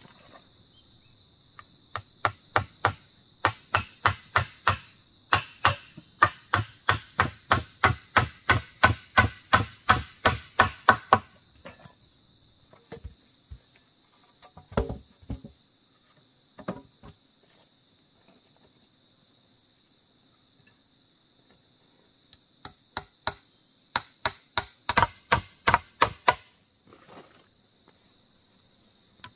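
Rapid chopping strokes of a blade, about three a second, in two long runs with a pause and a few scattered knocks between them. A steady high insect drone carries on underneath.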